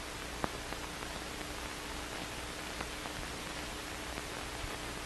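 Steady hiss of an old film soundtrack with a faint steady hum and a few light clicks, one about half a second in and a smaller one near three seconds.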